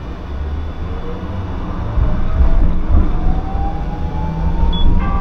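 Hiroshima Electric Railway streetcar pulling away, its electric traction motors whining in a pitch that rises steadily as it gathers speed, over a low rumble of wheels on the rails.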